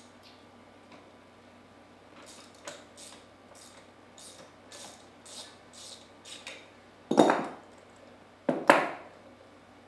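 Hand ratchet wrench working a bolt on a Comet P40 diaphragm pump, about ten short ratcheting strokes at roughly two a second, then two loud metal clanks of pump parts near the end.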